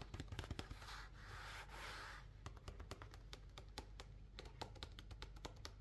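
Fingers rubbing and tapping on a paper sketchbook page, quietly. There is a soft rub from about one to two seconds in, then many light clicks and scratches.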